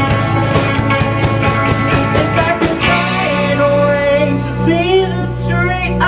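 A rock band playing a song: for about three seconds the drums and cymbals hit hard, then the drumming drops away, leaving held bass and chords with a singer's voice over them.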